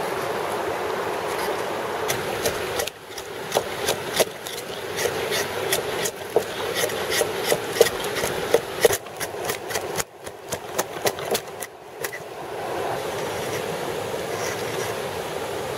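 Bushcraft knife used as a drawknife, scraping and shaving bark off a green log in a rapid series of short strokes and clicks, over the steady rush of a stream. The strokes come mostly between about 3 and 12 seconds in; before and after, the stream dominates.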